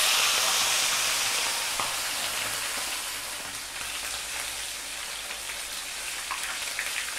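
Whole sea bream frying in hot sunflower oil in a pan, a dense steady sizzle right after the fish goes in. The sizzle is loudest at the start and slowly eases.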